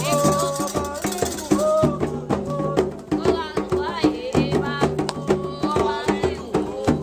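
Candomblé ritual music for Xangô: a group singing over drums and a shaken rattle.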